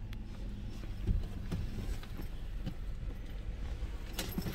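Car running with a steady low rumble heard from inside, with a few light knocks and clicks and one sharper knock about a second in.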